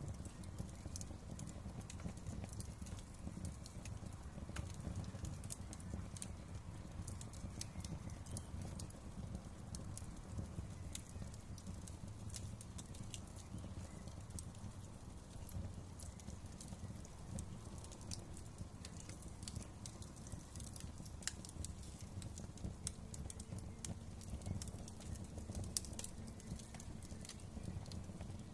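Wood fire crackling in a fireplace: scattered, irregular sharp pops and snaps over a steady low rumble of burning.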